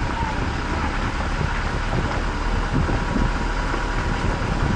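Steady road and wind noise of a car on the move.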